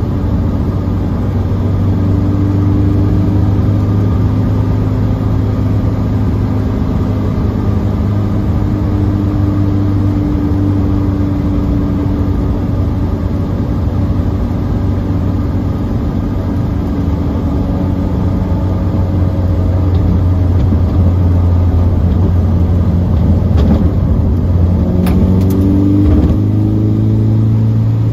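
Honda K20A2 2.0-litre four-cylinder engine in a Lotus Elise, heard from inside the cabin while cruising at a steady speed, with tyre and road noise under it. Near the end the engine note rises and falls as the car changes speed.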